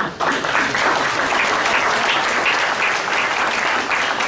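Audience applauding, the clapping breaking out at once and holding steady.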